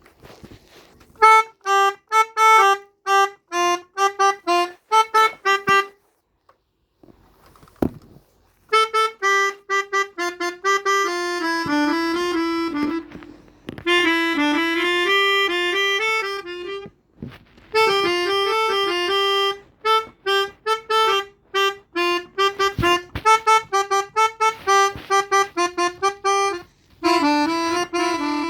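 Melodica (pianika) playing the telolet bus-horn tune in quick, short, detached notes and runs of held notes, in phrases. There is a silent gap of about three seconds around six seconds in.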